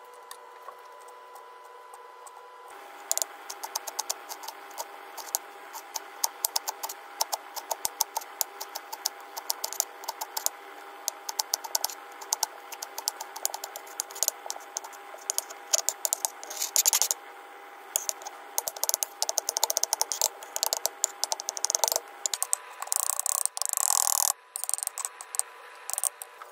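Chef's knife chopping green leaves and garlic on a bamboo cutting board: quick, irregular knocks of the blade on the wood. The knocks start about three seconds in, come thickest shortly before the end, and run over a steady hum.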